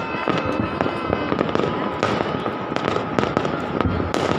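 Fireworks and firecrackers going off all over a city, a dense, continuous mix of overlapping distant bangs and crackles, with a steady high tone running under them.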